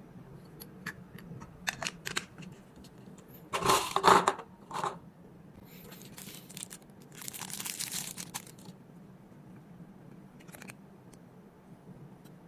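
Packaging being handled: scattered light clicks, then a loud crinkling, tearing rustle about four seconds in and a longer, softer rustle a couple of seconds later, over a steady low hum.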